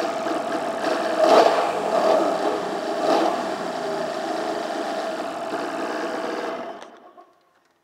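2004 Polaris MSX 140 personal watercraft's direct-injection engine running, with two brief rises in revs, then shut off about seven seconds in.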